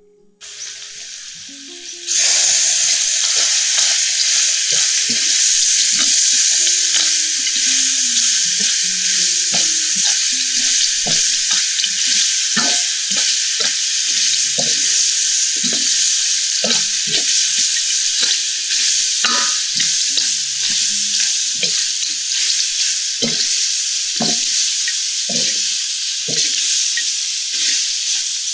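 Small whole crabs sizzling loudly in hot oil in a metal wok while a spatula stirs them. The sizzle starts suddenly about two seconds in and holds steady, with frequent scrapes and knocks of the spatula against the wok.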